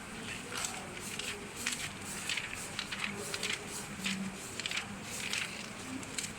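Irregular soft rustling and handling noises, a quick, uneven run of short scratchy sounds over a faint steady hum.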